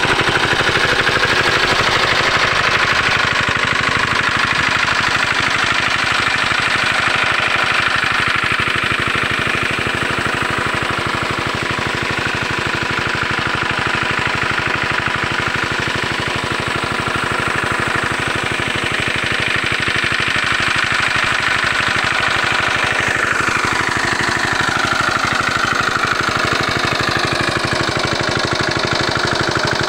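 Old Chinese-made single-cylinder diesel engine driving a water pump, running steadily with a fast, even firing beat. Water gushes from the pump's outlet pipe.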